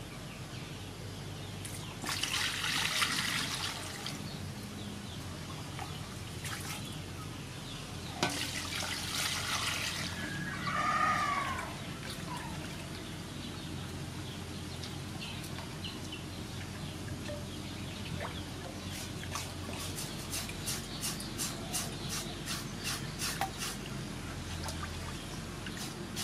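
Water sloshing and splashing in an aluminium basin as raw pork is washed by hand, with two louder splashes about two and eight seconds in. Near the end comes a quick run of scraping clicks as a knife is drawn over the wet pork skin. A short bird call sounds about eleven seconds in.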